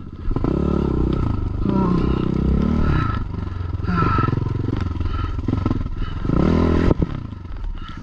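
Avantis 250 enduro motorcycle engine revving up and easing off again and again, three rises in a few seconds, with a sharp knock near the end.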